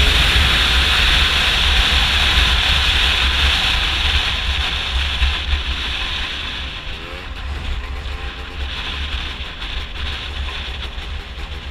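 Gilera Runner scooter's two-stroke engine, fitted with a Malossi 172 kit, running hard at high revs under heavy wind buffeting on the mic. About halfway through the engine eases off and gets quieter, its pitch shifting as the revs drop and pick up.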